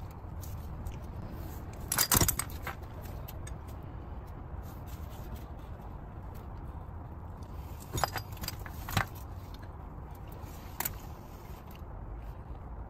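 Metal clinking and scraping as the splined outer CV joint of a Volvo S60 front drive axle is worked by hand out of the wheel hub. The clinks come in a cluster about two seconds in, again around eight and nine seconds, and once more near eleven seconds, over a low steady rumble.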